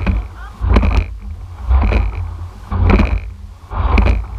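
Rowing eight under way, heard from the rigger: a rhythmic rush of water with clunks from the oar in its oarlock, about once a second over a low rumble on the microphone.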